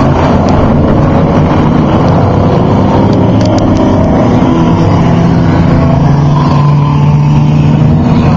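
Off-road race truck engines running at speed, with a loud, steady drone.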